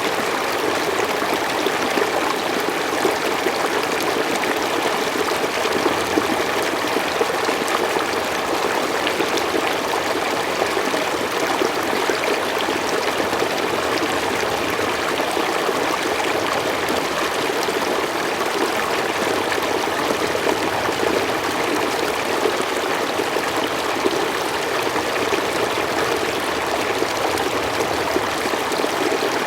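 A forest stream flowing steadily over stones, a continuous rushing with small trickling and splashing sounds on top.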